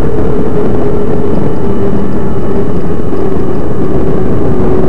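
Electric mountain bike's motor running at about quarter power while the rider pedals, a steady whine over a heavy, even rumble. The whine dips slightly in pitch about four seconds in.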